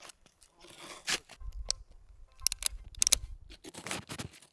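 Snowshoes crunching and scraping on snow in a series of irregular, crisp steps.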